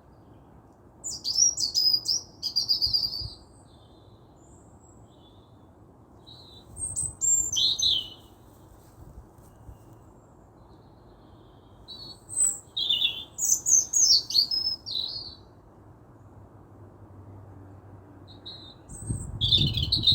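A songbird singing in short phrases of quick, high, falling notes, about four phrases a few seconds apart. A low rumble rises near the end.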